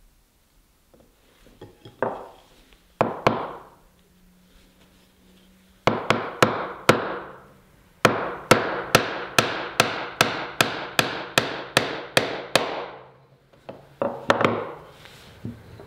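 Steel-headed Japanese hammer (genno) striking the handle of a Japanese chisel, chopping small mortises into a cherry board. A few separate blows, then a steady run of about three strikes a second lasting several seconds, then a couple more blows near the end.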